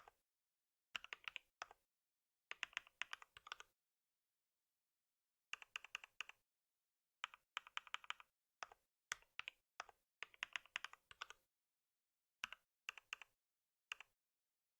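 Computer keyboard typing in short bursts of rapid keystrokes, with pauses of a second or two between them.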